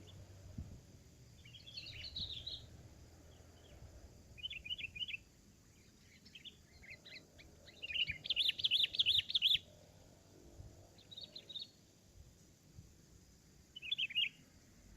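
Sooty-headed bulbuls calling in short, bubbling bursts of quick notes, about six phrases, the longest and loudest just past halfway.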